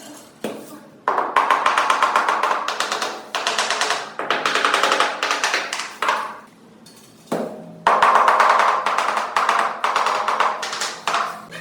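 Rapid, dense tapping or rattling in two long runs of several seconds each, with a short break near the middle, typical of tile-setting work.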